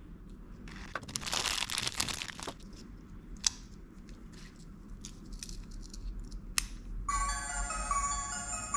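Plastic packaging tearing and crinkling, with a few sharp clicks. About seven seconds in, a small toy speaker starts playing a chiming Japanese train departure melody.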